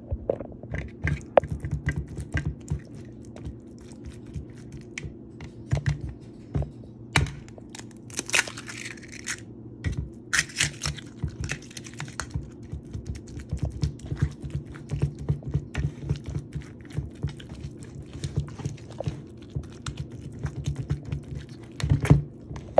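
Metal spoon stirring and mashing a wet raw-meat, egg and cheese mix in a bowl: irregular clinks and scrapes against the bowl with squishing, and two longer scraping stretches around the middle.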